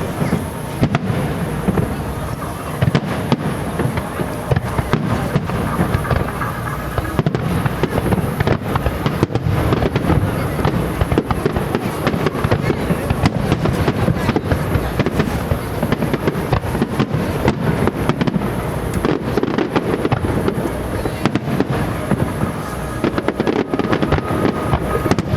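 Starmine fireworks barrage: shells bursting in rapid, overlapping succession, a dense run of booms and crackles with no pause.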